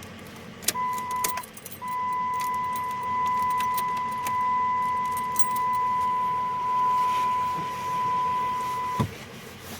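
A steady high-pitched electronic beep: a short first beep, then one long unbroken tone for about seven seconds that cuts off sharply. Keys jingle and click as it begins.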